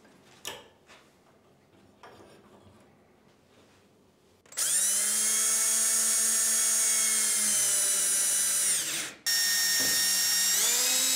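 AEG 18 V cordless drill-driver fixing a perforated metal bracket to a plasterboard panel, after a few faint handling clicks. The motor whines up to speed and runs steadily for about four and a half seconds, stops briefly, then starts again, its pitch stepping up near the end.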